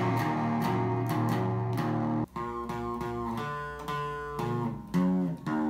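Fender electric guitar played through a homemade LM386 breadboard mini amp and a small bookshelf speaker, giving a clean tone. It plays strummed chords, stops briefly about two seconds in, then goes on with picked notes and chords.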